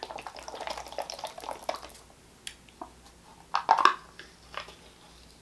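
A person eating close to the microphone: wet chewing and mouth clicks through the first two seconds. It then goes quieter, with a louder short smack about three and a half seconds in.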